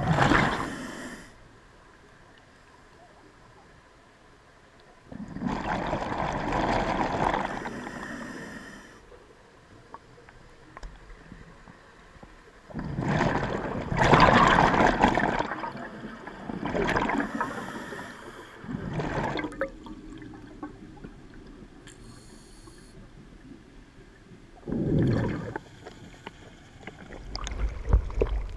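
Scuba diver's exhaled breath bubbling out of the regulator underwater, in noisy bursts one to three seconds long every few seconds, with quieter stretches between. Near the end, water sloshing and wind rumble as the camera breaks the surface.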